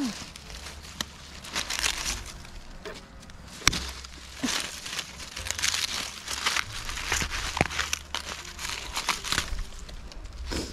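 Crisp young Japanese knotweed shoots being snapped off by hand: a series of sharp cracks and crackles from the hollow, jointed stalks breaking, mixed with leaves rustling and crumpling.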